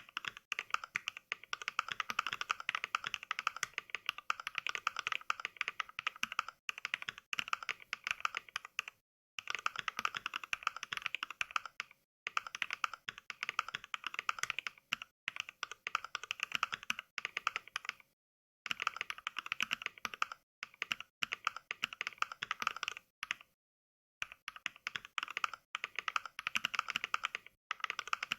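Rapid touch typing rendered as mechanical keyboard keystrokes from the Mechvibes NK Cream sound pack: fast, dense clicking in runs of several seconds, each run cut off by a brief dead-silent pause.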